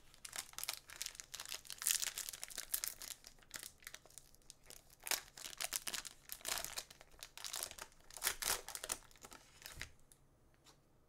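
Plastic wrapper of a Donruss basketball card pack crinkling as it is handled and torn open, a run of irregular sharp crackles that dies away near the end.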